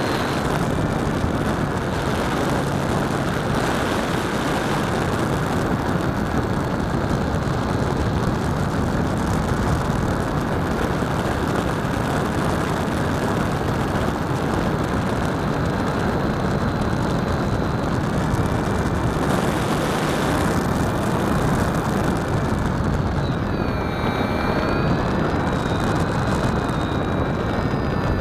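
Model RC airplane heard from a camera on its tail plane: a steady rush of wind over the microphone, with a thin motor-and-propeller whine that dips and rises in pitch near the end.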